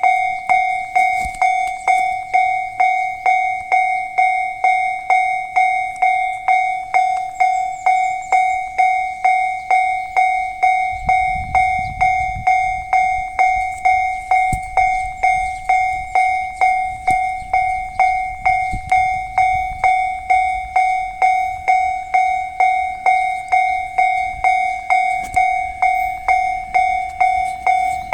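Japanese level-crossing warning bell ringing steadily, an electronic ding repeated about twice a second, the signal that a train is approaching. A low rumble sounds under it from about eleven to twenty seconds in.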